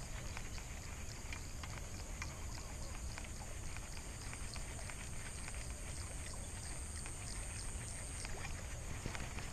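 Shimano SLX baitcasting reel being cranked to retrieve a pencil lure, with many small irregular clicks over a low rumble of wind on the microphone. A steady high hiss stops near the end.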